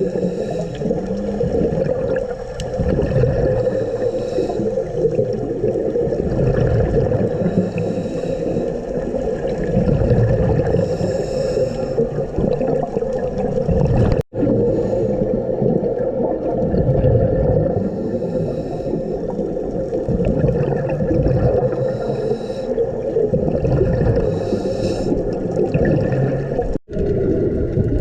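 Underwater recording of a scuba dive: a steady underwater hum, with a bubbly rush of a diver's exhaled regulator bubbles every few seconds. The sound breaks off sharply twice.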